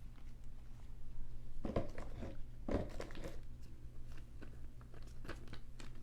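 Trading cards being handled and slid into plastic card sleeves: light rustling and clicking, with two louder crinkly handling noises about two and three seconds in, over a steady low hum.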